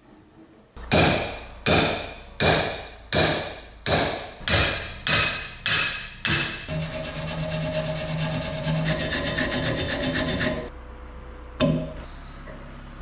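Hammer blows on the old cast-iron grater body, about nine evenly spaced strikes each ringing briefly, then a few seconds of rapid, buzzing rattle of fast taps. A single knock follows near the end.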